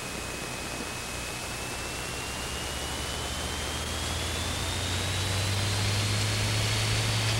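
Cessna 210's engine and propeller as heard in the cabin, getting steadily louder as power comes up for takeoff, over a steady hiss. A thin high tone rises slowly in pitch throughout.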